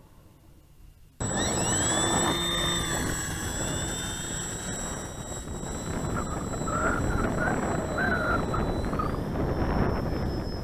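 Nearly silent for about a second, then a Parkzone S.E.5a RC model biplane's electric motor and propeller whine as it flies, the pitch rising and shifting with throttle and stepping up near the end, over a steady rush of wind noise.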